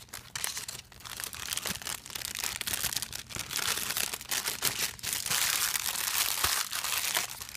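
Thin clear plastic packaging bag crinkling and crackling steadily as hands open it, slide a foam squishy back inside and fold it closed.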